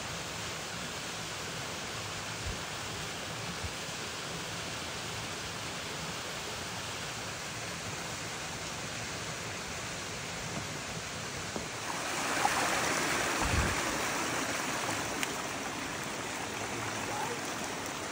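A mountain stream rushing over rocks, a steady water noise that grows louder about twelve seconds in and eases off again a few seconds later.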